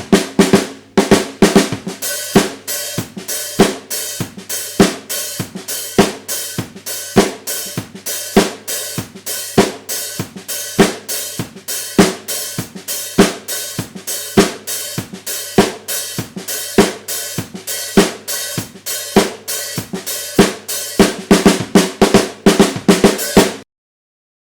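SCD 14" x 5" maple snare drum struck in a steady beat of about two hits a second, with quicker flurries of strokes near the start and near the end. The playing stops suddenly just before the end.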